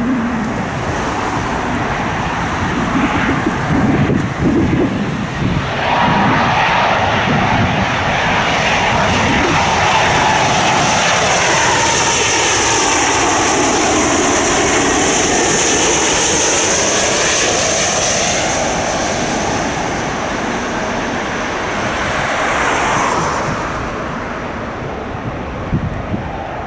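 Wide-body jet airliner on final approach passing close by to land, its engines building to a loud steady jet noise with a high fan whine, then fading away. Wind buffets the microphone at the start.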